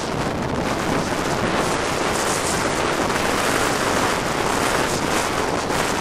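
Strong wind buffeting the camera microphone: a loud, continuous rush with small surges.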